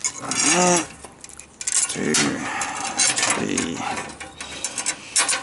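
Steel tripod legs, bolted together at one end, clinking and rattling as they are handled and pivoted on the bolt, with ratchet-like clicks. Three short whiny tones rise and fall in pitch, about half a second, two seconds and three and a half seconds in.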